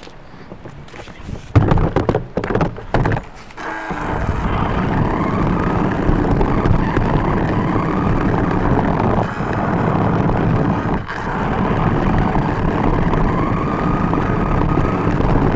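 A few clunks and knocks, then a toy RC car driving on concrete, heard from a camera riding on it. Its small motor whines, slowly rising and falling in pitch as it changes speed, over the steady rumble of its wheels on the pavement.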